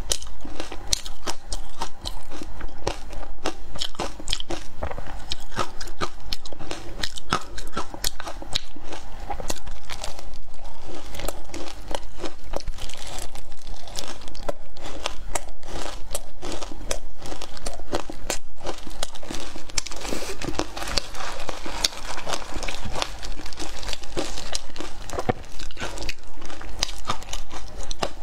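Close-up crunching of matcha-coated ice being bitten and chewed, a rapid, unbroken run of crisp crunches.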